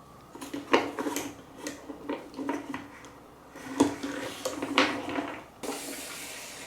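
Balls rolling and clacking down a wooden marble run: a string of sharp wooden clicks and rattles over a rolling rumble, the loudest knocks about a second in and again around four to five seconds. About five and a half seconds in it turns to a smoother, steady rolling hiss.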